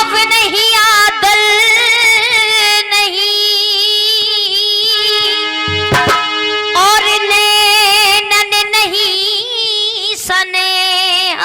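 A female voice sings a long, ornamented wordless melodic line, with held notes that waver and bend in pitch, over instrumental accompaniment, opening a jikri bhajan. A low drum stroke comes about six seconds in.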